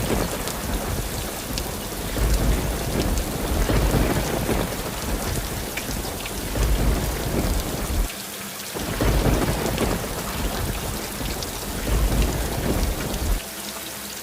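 Steady noise of heavy rain with deep rumbles swelling and fading every few seconds. It drops away briefly about eight seconds in and again near the end.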